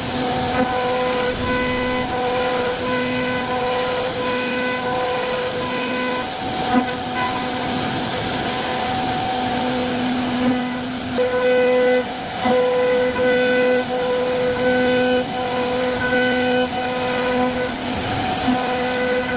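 CNC wood-carving router cutting a door panel: a steady pitched whine over cutting noise that breaks off and resumes every half second to a second or so as the tool changes direction.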